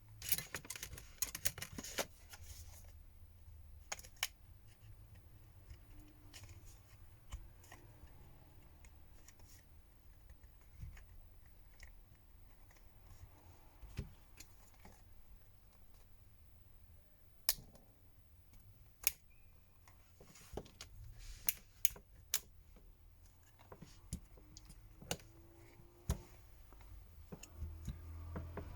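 Small sharp clicks and taps of tools working on a smartphone's plastic and metal parts during disassembly: a quick run of clicks in the first two seconds, then irregular single clicks, over a low steady hum.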